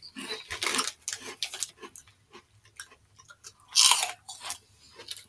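Crunchy savory snack puffs being chewed up close, a run of irregular crackling crunches, with the plastic snack bag crinkling; the loudest crackle comes about four seconds in.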